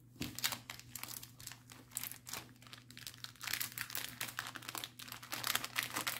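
Plastic packaging of a cross-stitch kit being handled and pulled at while being unwrapped, making many quick, irregular crackles.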